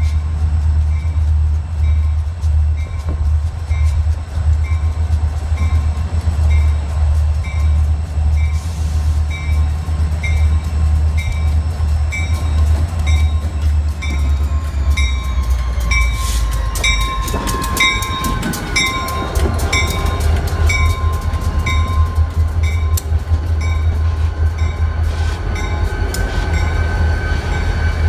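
A train passing close by, with a deep rumble and a bell ringing steadily a little more than once a second. About halfway through, the rumble gives way to rattling and clatter, with squealing tones that slide down in pitch.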